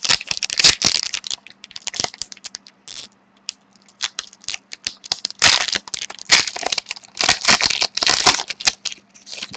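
A trading-card pack wrapper being torn open and crinkled in the hands, in repeated bursts of crackling with sharp clicks, as the cards are pulled out.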